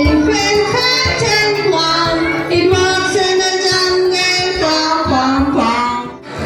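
A song with a high sung voice over instrumental backing and drum strokes, dipping briefly near the end.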